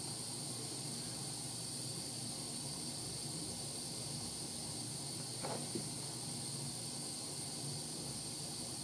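Brass gas torch burning with a steady hiss, with one faint tick about five and a half seconds in.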